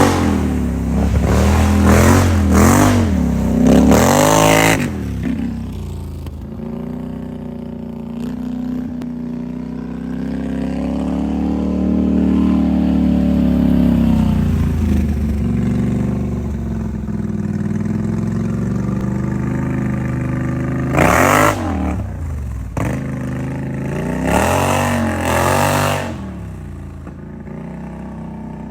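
2019 Polaris High Lifter engine through an aftermarket SLG Welding exhaust, blipped several times in quick revs, then running steadily with a slow rise and fall. It is revved sharply again twice later and settles to idle.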